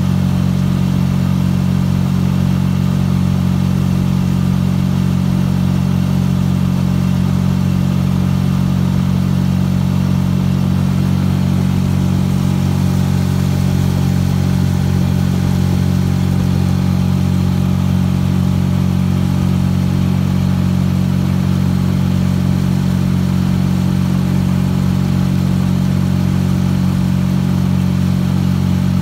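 Small outboard motor on a canoe running steadily at a constant speed, a loud even engine drone with no change in pitch.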